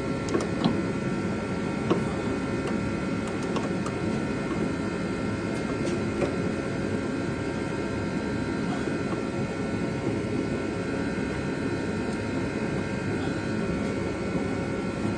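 Steady mechanical hum, with a few light taps in the first couple of seconds.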